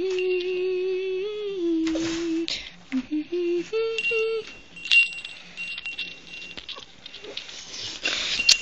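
A person humming a short tune: one long, slightly wavering note, then a few shorter notes that step up and down about three seconds in. Scattered faint clicks follow.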